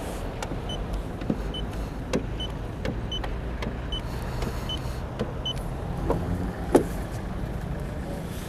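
Short high electronic beeps, about one a second, from a paint-thickness gauge taking readings on a car's body panels, with light clicks as it is set against the panels. A sharper knock comes about two-thirds through, over a steady low hum.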